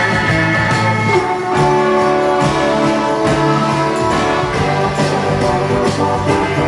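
Christmas song with jingle bells shaken on a steady beat over sustained instruments.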